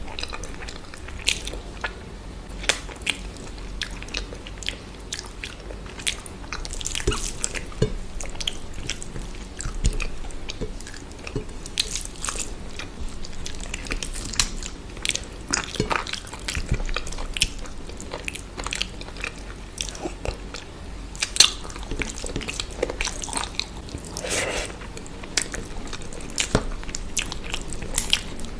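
A person eating, chewing and biting food, with frequent irregular sharp mouth clicks and smacks.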